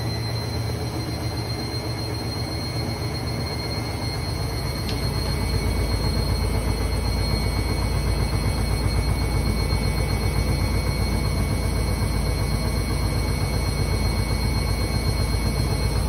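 Candy front-loading washing machine running, its drum churning a load choked with excess detergent foam (suds lock). The steady motor and drum noise deepens into a louder low rumble about five seconds in.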